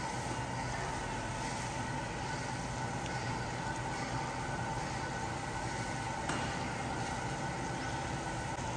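Steady machinery hum with a few level tones over it, like ventilation plant running inside a large concrete building, with one faint knock just past six seconds.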